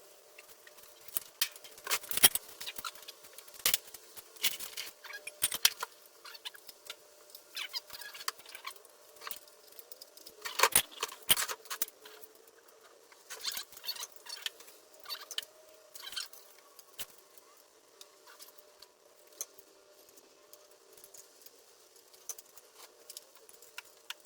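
Irregular light clicks and knocks, like small hard objects being handled, busiest in the first half and thinning out near the end.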